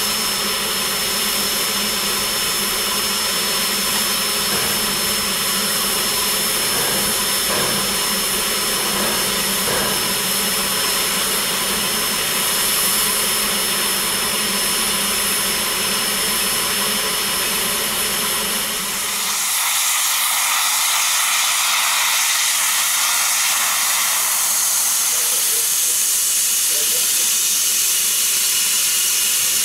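Steam locomotive (1917 Baldwin 2-8-2 Mikado) standing with steam up, giving a steady mechanical hum with a thin high whine. About 19 seconds in, the deep hum drops away and a loud hiss of venting steam takes over as steam pours out at the front of the engine.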